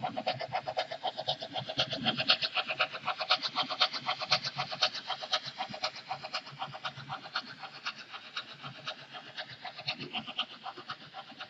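Märklin HO-scale BR 50 model steam locomotive running past with its freight train, making a rapid, even beat. The beat grows louder over the first few seconds and fades toward the end.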